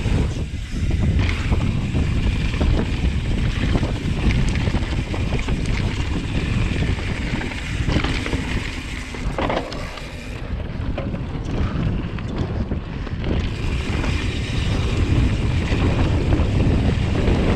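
Mountain bike descending a dirt and gravel trail: tyres rolling over the loose surface and the bike rattling over bumps, with steady wind buffeting the camera microphone.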